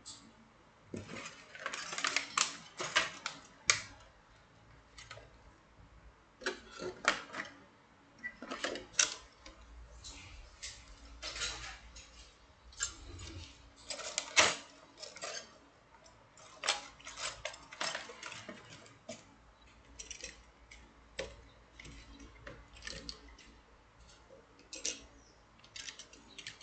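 Small metal wire puzzles clinking and jangling against each other as they are taken out and handled: irregular clusters of sharp clinks with short pauses between them.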